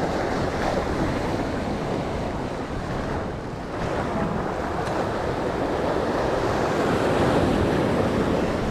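Sea waves washing and foaming over shoreline rocks, a steady rushing surf, with wind buffeting the microphone.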